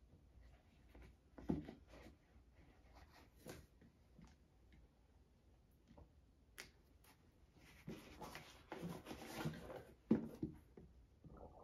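Faint handling noises of a pair of rubber-soled sneakers being turned over in the hands: scattered soft knocks and rustles, a longer stretch of rustling about eight seconds in, and a sharp knock just after.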